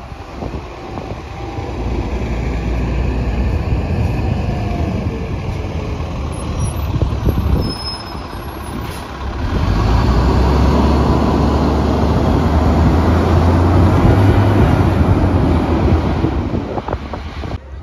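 City bus engine pulling away from a stop and accelerating past: a low steady drone that grows much louder about halfway through as the bus goes by, then falls away near the end as it drives off.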